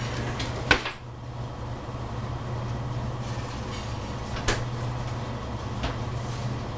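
Three sharp knocks in a kitchen, the loudest under a second in and two lighter ones later, over a steady low hum.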